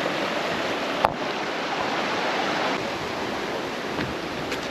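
River water rushing, a steady even hiss of flowing water, with one sharp click about a second in.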